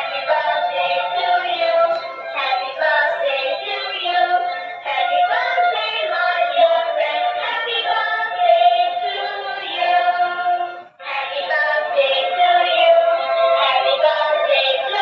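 A dancing cactus toy playing an electronic song through its small built-in speaker. The sound is thin, with no bass, and breaks off briefly about eleven seconds in before starting again.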